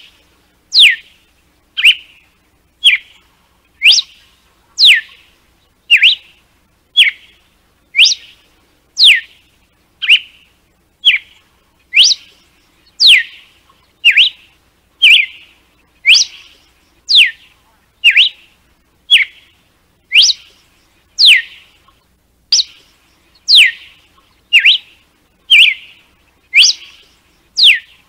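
Red-cowled cardinal (galo-de-campina) singing its 'açoite' (whip) song: loud, sharp whistled notes about once a second, each a quick downward sweep, some led by a short lower note.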